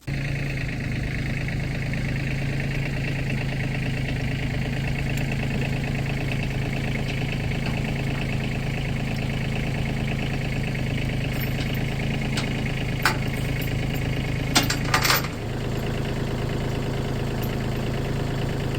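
An engine running steadily at constant speed, with a few sharp clicks near the middle and a slight drop in pitch a little later.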